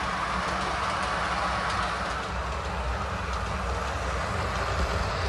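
Model train running along the track: an electric locomotive pulling a string of tank wagons, giving a steady rolling rumble of wheels on rail with faint clicking.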